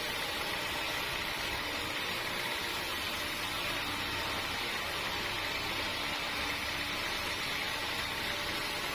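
Sawmill machinery running steadily, an even mechanical noise that does not break or change.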